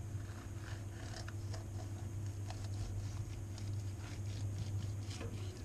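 Knife slicing through the crispy skin and breast meat of a roast guinea fowl on a wooden chopping board, giving a run of faint, irregular crackles and small clicks. A steady low hum lies under it.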